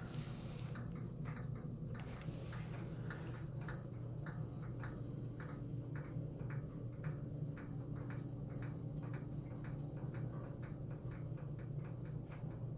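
1995 Ford F-150's 5.0 L V8 running steadily with a regular, rapid ticking over its hum, coming from the driver's side of the engine; the cause of the tick is unknown to the owner.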